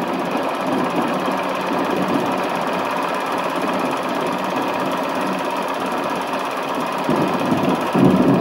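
Film projector running: a steady mechanical whirr and rattle of the film transport, growing a little louder near the end.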